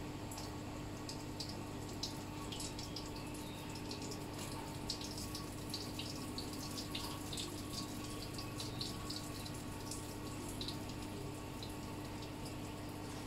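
Water trickling and splashing into a concrete fish pond, with many small irregular drip-like splashes over a steady low hum.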